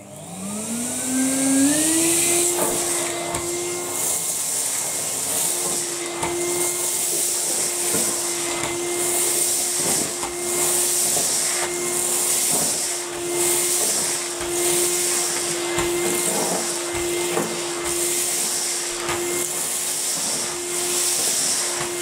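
Numatic Hetty cylinder vacuum cleaner starting up, its motor whine climbing in pitch over the first two seconds, then running at a steady hum. Over the hum a hiss of air swells and fades about once a second as the floor tool is pushed and pulled over carpet, with scattered clicks as paper scraps are sucked up.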